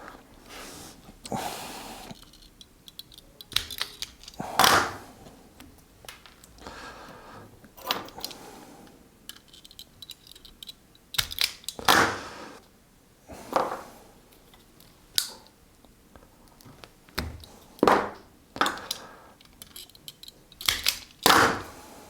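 Hand wire strippers clicking and snapping as they clamp and pull insulation off thin stranded copper conductors: about a dozen sharp, irregular clicks with light handling rustle between, from strippers that are not cutting cleanly.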